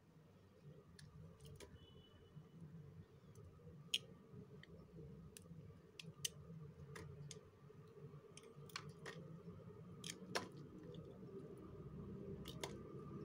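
Faint, irregular crisp cracks and clicks of a hardened coating being cracked and peeled off a bar of soap, with three sharper snaps among them.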